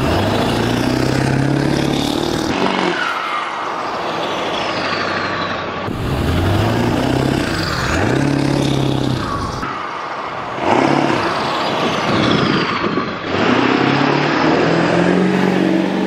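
Straight-piped 7.3 L Powerstroke V8 turbo diesel of a 2000 Ford F-250 Super Duty driving by, revved up and let off several times, with the turbocharger's whistle falling in pitch as the revs drop. The sound cuts abruptly between several short takes.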